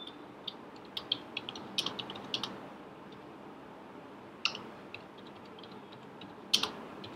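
Typing on a computer keyboard: irregular runs of key clicks, dense for the first couple of seconds, then a pause with only a few scattered strokes, and one louder keystroke near the end.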